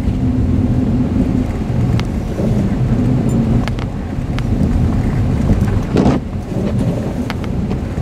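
Inside the cabin of a Honda car driving on a snow-covered road: a steady low rumble of engine and tyres, with a few sharp clicks and knocks, the loudest about six seconds in.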